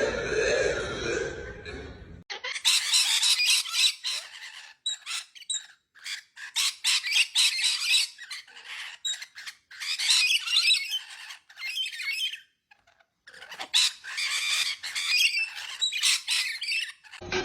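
A bird squawking over and over in runs of harsh, high calls broken by short pauses, with one clear pause about three-quarters of the way through. The squawking begins after about two seconds of fuller sound.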